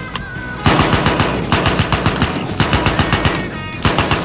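M3A1 'grease gun' .45 submachine gun firing full-auto in about four short bursts with brief gaps, the individual shots distinct, starting about half a second in. Faint background music plays under it.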